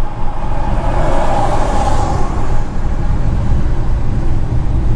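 Car driving on a road: a loud, steady low rumble of road and wind noise, with a swell of hiss in the first two seconds or so, like another vehicle passing.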